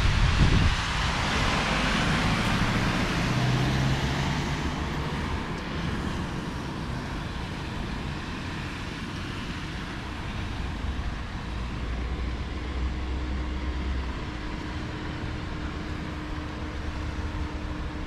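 Road traffic passing on a wet road: tyres hissing on the wet surface over a low engine rumble. It is loudest over the first few seconds, then settles to a steadier wash.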